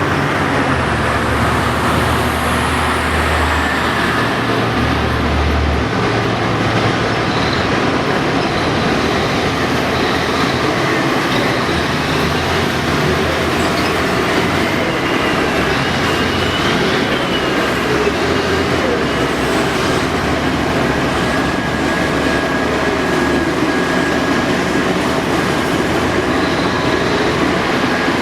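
Caterpillar 5130B hydraulic excavator working under load: its big diesel engine runs steadily, the deep engine note shifts as it digs and swings, and the hydraulics give faint whines that rise and fall.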